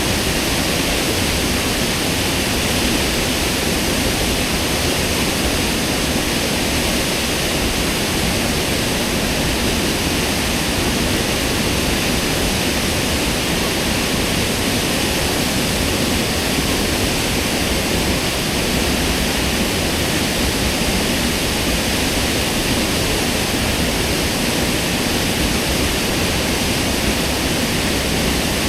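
Waterfall roaring: a loud, unbroken rush of falling water that stays even throughout.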